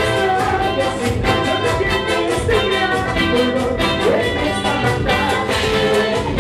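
Band playing Latin American dance music live, with a steady beat and a melody over it.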